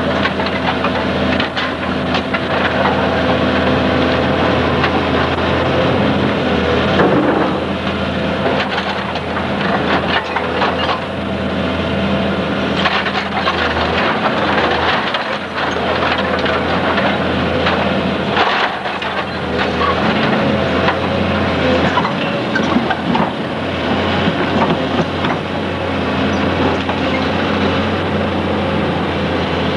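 Hydraulic excavator's diesel engine running steadily under load while it tears into the house, with repeated cracks and crashes of breaking timber and falling rubble.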